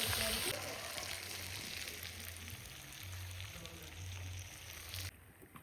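Food frying in a pan: a steady sizzle that slowly fades and then cuts off suddenly near the end.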